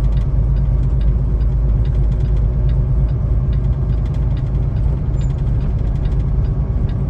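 Semi-truck diesel engine running steadily under light throttle, heard from inside the cab as a constant low rumble. Faint ticks recur throughout, the kind of clatter that snow chains on the drive tires make.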